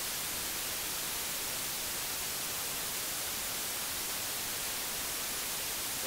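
Steady white-noise hiss, even and unbroken.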